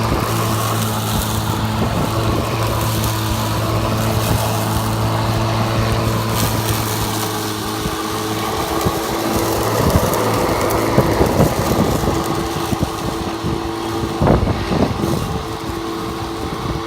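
Electric lawn mower running with a steady hum. About eight seconds in, the deepest part of the hum drops away, and a string of irregular knocks and bumps follows before the hum settles again near the end.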